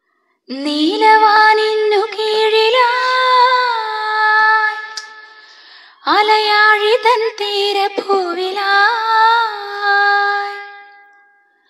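A woman singing the opening of a song: two long, drawn-out melodic phrases of about five seconds each, the second fading away.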